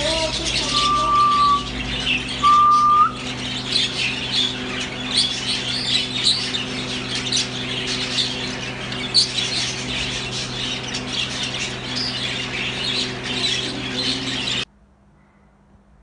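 Budgerigars chattering and chirping in a cage, with two short steady whistles near the start over a steady hum; it cuts off abruptly near the end.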